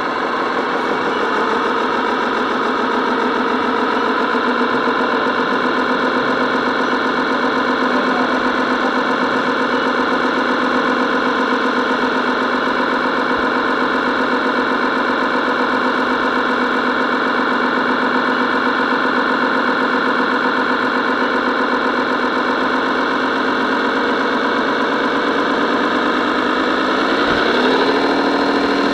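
Radio-controlled scale truck driving, a steady engine-like hum of several held tones that glides up to a higher pitch near the end.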